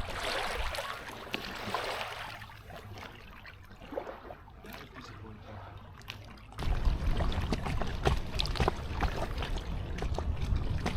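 Kayak paddle strokes: water splashing and trickling off the blades. About two-thirds through, a louder low rumble comes in suddenly and the splashing gets denser.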